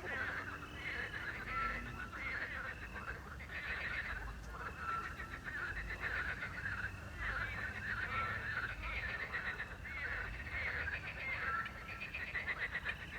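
Night chorus of frogs croaking in dense, rapidly pulsed bursts that overlap continuously, with short clear whistled notes recurring every second or two over a low steady rumble.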